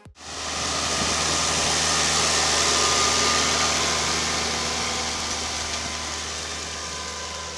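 New Holland T7050 tractor's six-cylinder diesel engine running steadily under load while pulling a plough, with a strong hiss over it. The sound grows over the first couple of seconds, then slowly fades.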